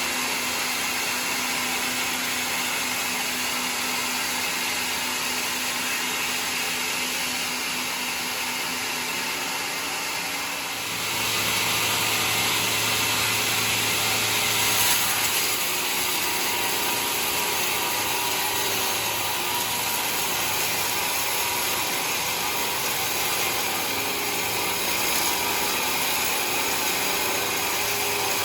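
Sawmill running, its blade cutting through a mahogany log with a steady whine and rasp; the sound grows louder about eleven seconds in.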